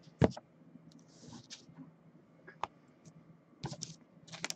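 A sharp knock just after the start as a stack of trading cards is set down on a desk, then scattered light clicks and taps of things being handled, with a small cluster near the end.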